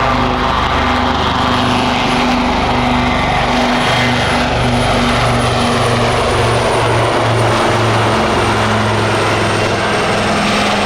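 Royal Navy AW159 Wildcat helicopters flying a display, with loud, steady rotor and engine noise. The low rotor beat pulses throughout, and a whine slides down in pitch as the helicopters pass.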